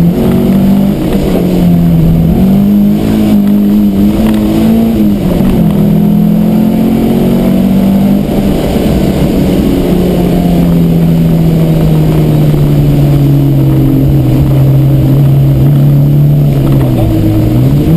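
Peugeot 309 GTI 16's 16-valve four-cylinder engine under load on a lap, heard from inside the cabin. The revs rise and fall through the first few seconds and dip sharply about five seconds in. They then hold steady for a long stretch before dropping near the end as the car lifts off, then climbing again.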